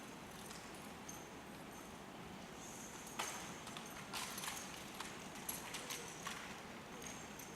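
Rifle drill team's rifles and boots clacking: after about three quiet seconds comes a string of sharp, irregular taps and clacks.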